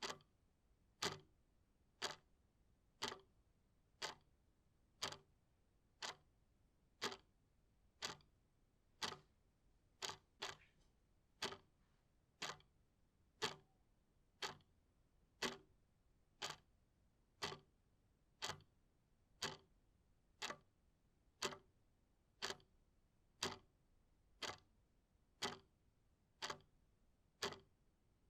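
A clock ticking steadily, about one sharp tick each second, with two ticks coming close together about ten seconds in.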